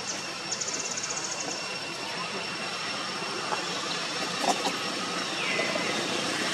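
Steady outdoor background noise with a high, rapidly pulsing insect call about a second in and a thin high insect whine throughout. A few light clicks near the middle.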